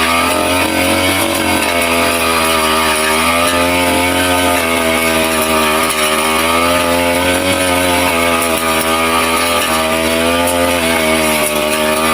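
Small petrol engine of a grass-cutting machine running steadily, its pitch wavering slightly as it works through grass.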